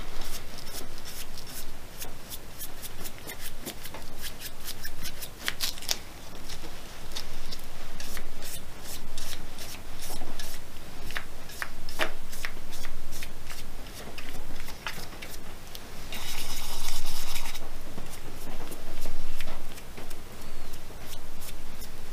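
Paintbrush being worked over a spalted beech mug, the bristles and gloved hands scratching and rubbing on the wood in quick strokes with many small clicks, and a denser scrubbing hiss for a second or so about two-thirds of the way through.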